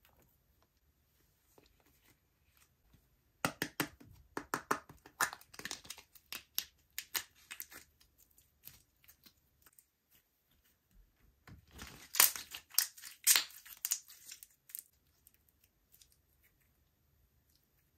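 Slime being squished and stretched by hand, giving runs of crackling clicks and pops: one from about three and a half seconds in, and a louder one a few seconds before the end.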